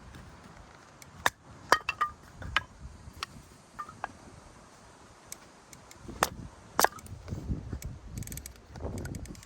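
Camping gear being handled: a string of irregular sharp clicks and knocks, a few ringing briefly, with rustling near the end.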